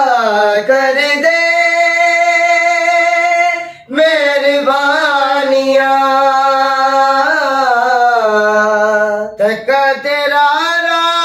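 Two men singing a Punjabi love song without instruments, holding long, wavering notes with ornamented turns; the voices break off for a breath about four seconds in and again near the end.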